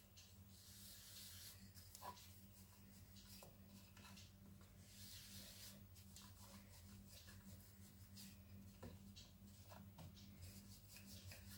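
Near silence: faint rubbing and a few soft taps of a rolling pin rolling out dough on a wooden board, over a low steady hum.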